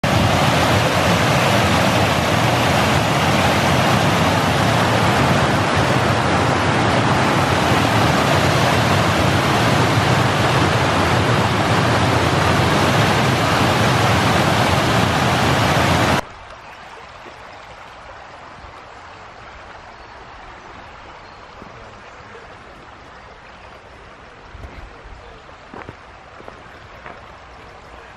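Water rushing over a stepped weir, a loud steady roar of white water that cuts off abruptly about sixteen seconds in. What follows is a much quieter steady outdoor background with a few faint clicks.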